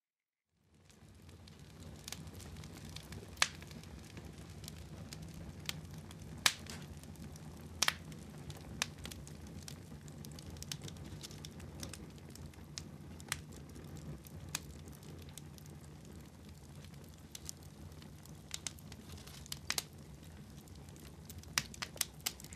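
Irregular crackling, with sharp pops scattered over a low steady rumble.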